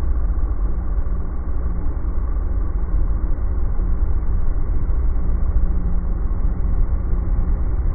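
Riding lawn mower engine running steadily, sounding muffled.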